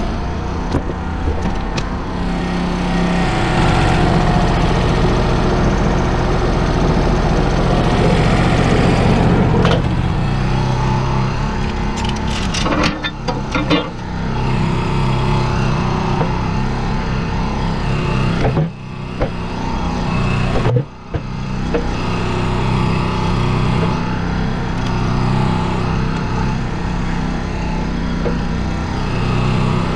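Portable band sawmill's engine running steadily, with a cluster of knocks and clanks about 13 seconds in and two brief drops in the engine sound a few seconds later.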